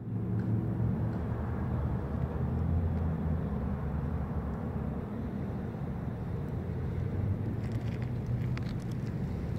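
A steady low rumble, with a faint hum in the first couple of seconds and a few light ticks near the end.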